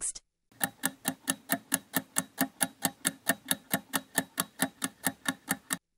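A clock-ticking sound effect: quick, even ticks, about six a second, starting about half a second in and stopping just before the end. It is a countdown timer marking thinking time for the viewer to guess the next number.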